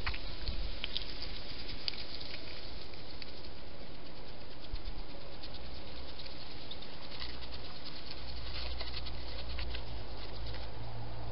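A hedgehog eating at a feeding bowl: a scatter of small, crisp chewing clicks, thickest from about seven to ten seconds in, over a steady hiss. A low hum comes in about two thirds of the way through.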